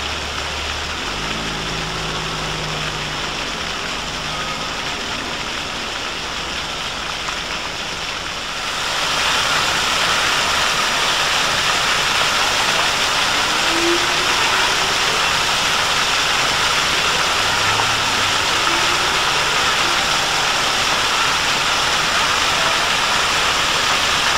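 Plaza fountain jets splashing onto wet paving, a steady rushing hiss that grows louder about nine seconds in as the jets shoot higher.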